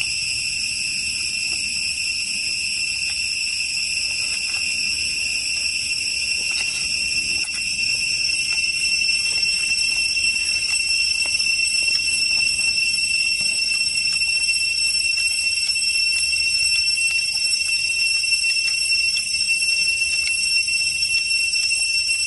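A steady, high-pitched insect drone, shifting slightly in pitch and getting a little louder about seven seconds in. Faint small clicks of the chicken being torn and eaten come through underneath.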